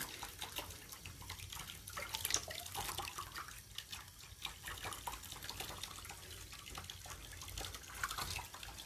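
Water splashing and dripping lightly in a small tub as a hand wets a rabbit's fur, with scattered small drips and splashes rather than a steady stream.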